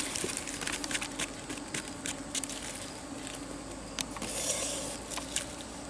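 Scattered light clicks and rustles from leaves being handled over a wicker basket of caught fish, with a faint steady hum underneath.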